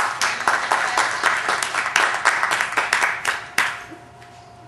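Audience applauding, many hands clapping densely, dying away after about three and a half seconds.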